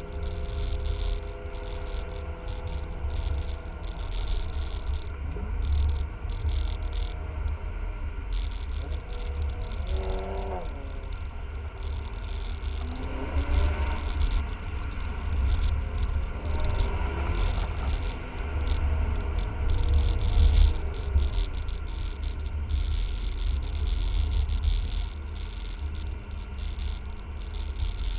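Cabin sound of a BMW E39 5 Series sedan on the move: a steady low engine and road rumble, with the engine note rising a few times as the car accelerates, around ten, fourteen and seventeen seconds in.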